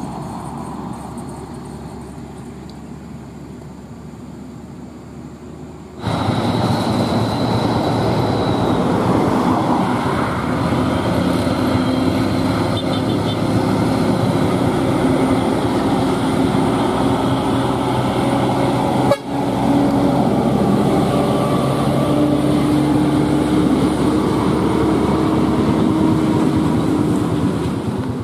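Heavy trucks' diesel engines running as they pass on a highway, much louder from about six seconds in. In the second half a horn sounds one long, steady note lasting several seconds.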